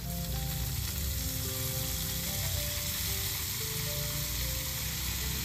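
Chilli, onion and leafy greens sizzling steadily as they fry in hot oil in a pan.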